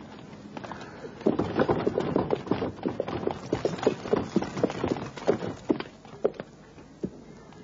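Horse-drawn carriage: hooves clip-clopping on hard ground, a quick run of hoofbeats that starts about a second in and thins out to a few scattered strikes near the end.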